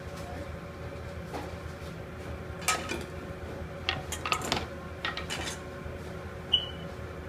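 Clinks and knocks of dishes being handled on a cutting board: a long white serving plate picked up and set down, several sharp clinks with a brief ring between about three and five and a half seconds in, and a short high ring near the end. A steady background hum runs underneath.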